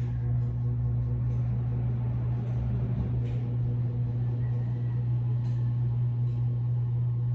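A steady low hum, unchanging in pitch and loudness, with a few faint soft ticks over it.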